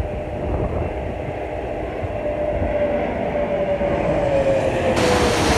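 Jet airliner on final approach passing low overhead: a steady rumble of engine noise with a whine that slowly falls in pitch as it goes by, turning louder and brighter near the end.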